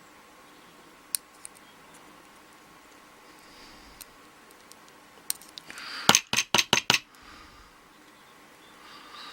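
Small metal parts of a Schlage lock cylinder being worked to free a stuck spring: a few light clicks, then a quick run of about seven sharp metallic taps a little after the middle.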